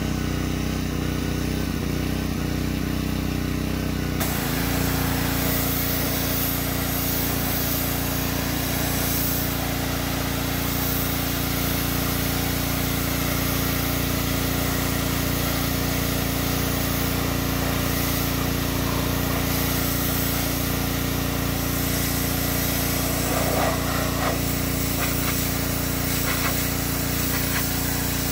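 Gas-engine pressure washer running steadily. About four seconds in the wand is triggered and the hiss of the high-pressure water jet spraying the truck's body joins the engine, and both hold steady from then on.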